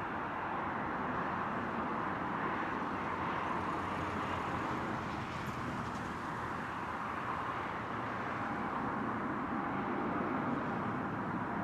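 Airbus A320 jet engines at takeoff thrust as the airliner lifts off and climbs out, a steady rushing noise.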